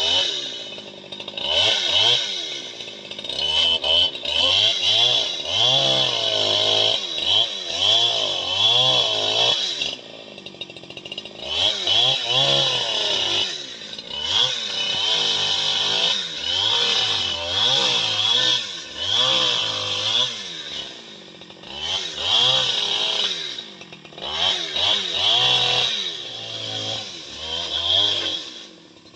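Long-bar chainsaw cutting the felling back cut through a large tree trunk, its engine pitch rising and falling continuously as it is worked through the wood. The level dips briefly a few times where the saw eases off, then surges back under load.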